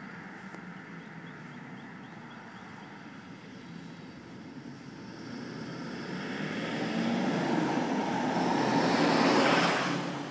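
A vehicle passing on the road close by: its road noise swells over several seconds to its loudest near the end, then begins to fade as it goes by.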